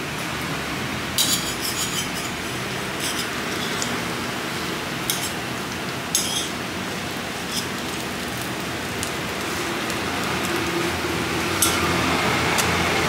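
Metal spatulas clinking and scraping against a flat-top griddle and metal rings, a few sharp clinks over a steady hiss. A low rumble builds near the end.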